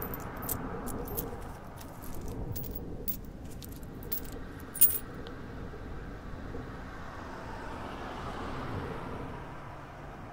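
Metal coins clinking in quick, irregular succession as they drop into a cloth cap, with one loud clink about five seconds in. A steady low background noise runs underneath.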